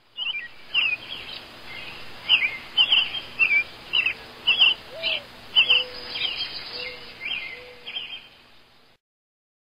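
Birds chirping: a short, sharp falling call repeated about once or twice a second, with a few low notes in the second half, fading out near the end.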